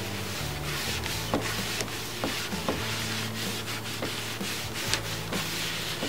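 An applicator rubbing sealer onto a soft pine beehive board in repeated wiping strokes across the wood.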